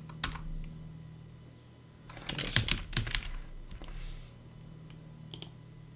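Computer keyboard keystrokes: a single tap at the start, a quick run of keys about two seconds in, then a few scattered taps later on.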